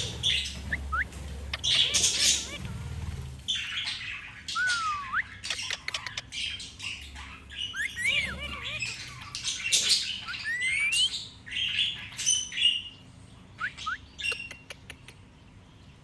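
Parakeet calling: short whistled chirps that rise and fall in pitch, mixed with harsh squawks, with scattered sharp clicks between them.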